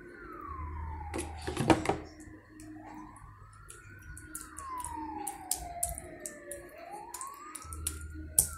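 A siren wailing slowly up and down, one rise and fall about every four seconds. Over it, a metal spoon clicks and scrapes against a metal pan while it spreads sauce on pizza dough, loudest about a second and a half in and again near the end.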